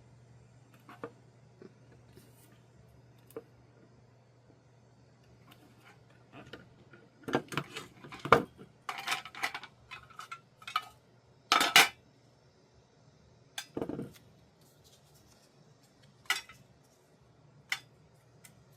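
Small hard objects being handled: scattered clicks and clacks that cluster through the middle, where two or three sharper clacks are the loudest.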